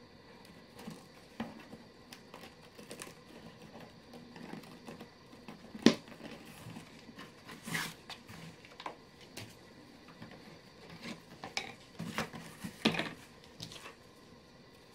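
Handling noise from a brown leather tube bag: leather rubbing and scraping, with scattered light taps and knocks as its cap, body and strap fittings are handled and set down on a board. One sharp knock about six seconds in is the loudest.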